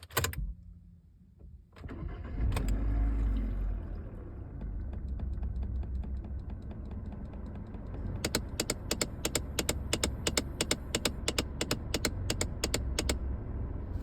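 2015 Hyundai Accent engine starting and settling to idle. A few seconds later comes a rapid run of sharp knocks from under the dashboard, about four or five a second, which stops after about five seconds: the passing knock heard on start-up whose cause the owner does not know.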